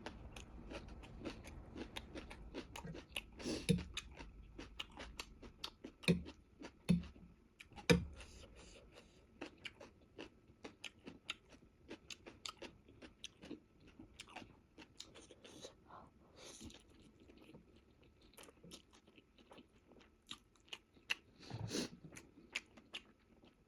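Close-miked chewing and eating: a steady run of small wet mouth clicks and crunches from someone eating a meal of spicy instant noodles, with a few louder bites near the start and again near the end.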